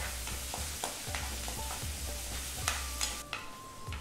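Chopped garlic, ginger and green chillies sizzling in hot oil in a nonstick wok while a spatula stirs them, scraping across the pan in quick, uneven strokes.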